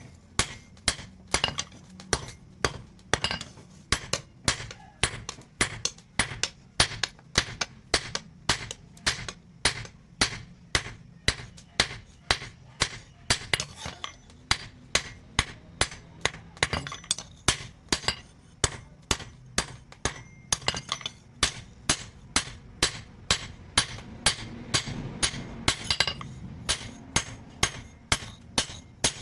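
Hammer blows on truck-spring steel on an anvil in a steady rhythm, about two a second, each with a short metallic ring: the steel being forged into a chopper blade.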